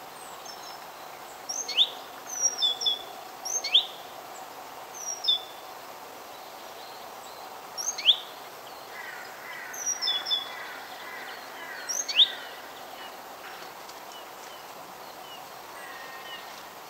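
Wild birds chirping: scattered short, high calls every second or two, several of them sharp downward-sweeping chirps, over a steady outdoor hiss.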